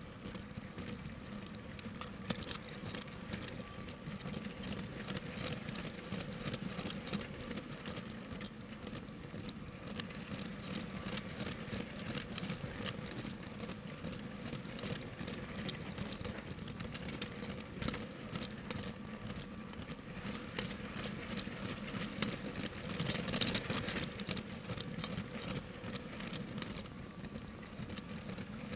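LEGO train running on plastic track: a dense, rapid clatter of the plastic wheels and couplings over the rails, with a faint steady whine under it, a little louder for a moment near the end.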